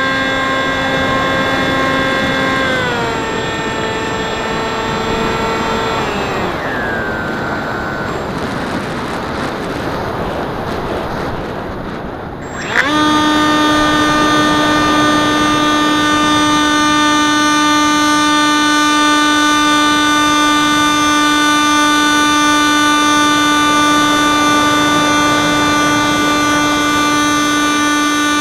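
Onboard sound of a Wing Wing Z-84 flying wing's uprated FunFighter electric motor and propeller whining in flight. The throttle is eased down in two steps, about 3 and 6 seconds in, and the whine fades to airflow noise while the plane glides. About 13 seconds in the motor is throttled up with a quick rise in pitch and then holds a steady, loud whine.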